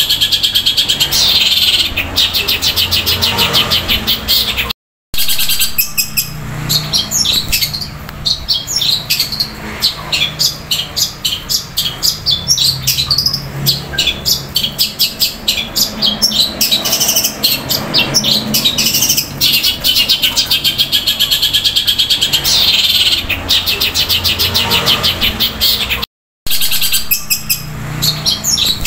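Long-tailed shrike (cendet) singing loudly in long, rapid rolls of chattering notes, in the style of house sparrow fighting calls. The song cuts out twice for a moment, about five seconds in and near the end.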